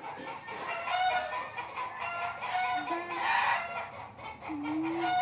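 Chickens clucking, with a rooster crowing, in a repeated series of short pitched calls.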